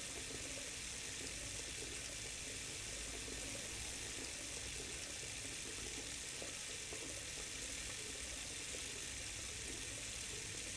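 Steady, even hiss with nothing else standing out.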